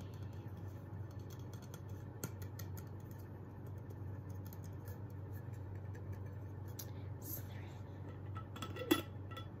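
A water bottle being handled: small taps and clicks of fingers and nails on the bottle, then a sharp click with a brief ring near the end as the loop-handle screw cap is taken hold of and opened.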